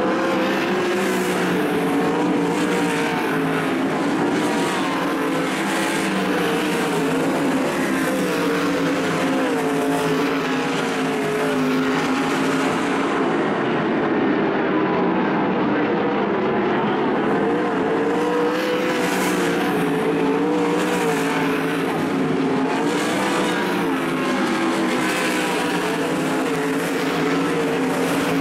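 410 sprint cars' methanol-burning V8 engines racing on a dirt oval, their engine notes rising and falling together as they go through the turns and down the straights.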